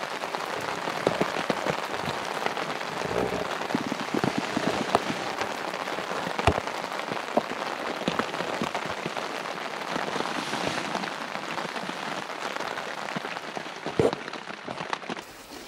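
Steady rain falling on the canvas of a Polish lavvu tent, heard from inside: a continuous hiss with the taps of many single drops striking the fabric.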